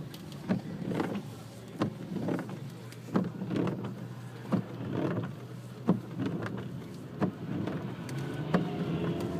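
Steady road and engine noise inside a moving car, broken by irregular sharp knocks roughly once a second.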